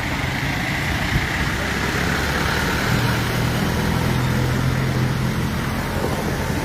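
A motor vehicle engine running steadily, a low hum over a noisy background.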